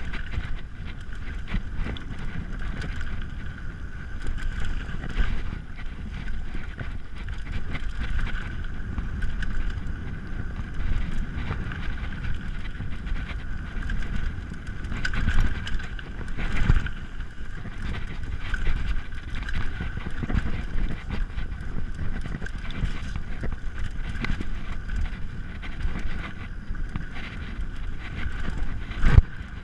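Mountain bike riding fast down a dirt singletrack: tyres rolling on dirt, the bike rattling and knocking over bumps, and wind buffeting the chest-mounted microphone. One sharp, loud knock comes near the end.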